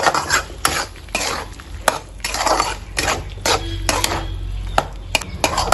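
Flat metal spatula scraping and knocking against a metal kadai while stirring thick frying masala paste with potato pieces, in irregular clinks and scrapes.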